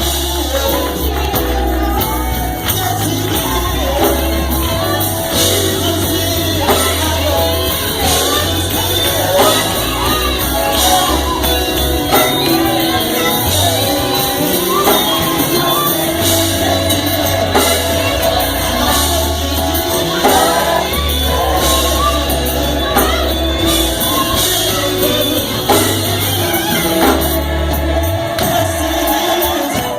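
Live gospel choir singing with band accompaniment: a heavy bass line and percussion that includes a tambourine, in a large, echoing room.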